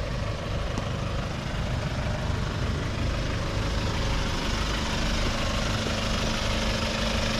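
Odyssey OD-330 camper truck's engine idling at a standstill, a steady low running sound. A steady hum joins it about five seconds in.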